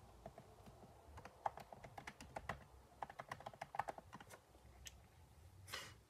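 Typing on a computer keyboard: quick, irregular runs of soft key clicks that thin out a little past four seconds in. A short soft rush of noise near the end.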